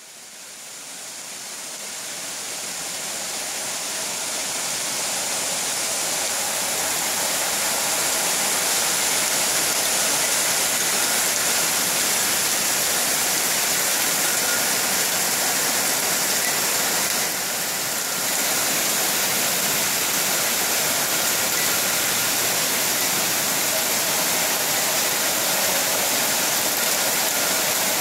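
Torrential downpour: a dense, steady rush of heavy rain, with water sheeting off the roof edge just in front of the door. It rises over the first few seconds, then holds steady.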